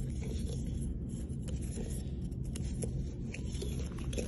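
Light scraping and rubbing as a metal presentation tube is tipped and shaken to slide out what is inside, with a few faint clicks.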